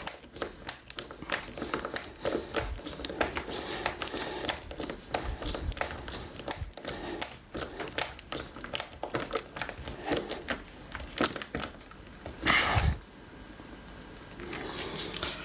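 A wood screw being turned by hand with a screwdriver into a hinge hole packed with bamboo slivers: a long run of irregular small clicks and creaks as it tightens against the stiff packing. A louder knock comes about twelve and a half seconds in.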